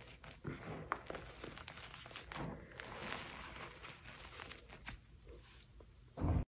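Hands squeezing and crumbling soft dyed gym chalk in a bowl: soft crunching and powdery crumbling with a few sharp crackles. Near the end comes a loud, low thump, and then the sound cuts off suddenly.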